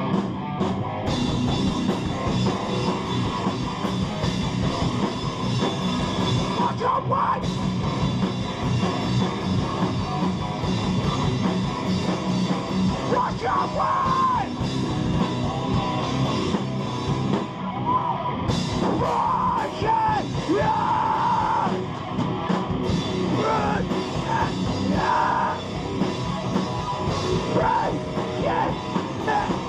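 Live hardcore band playing loud and without a break: distorted electric guitars over a driving drum kit.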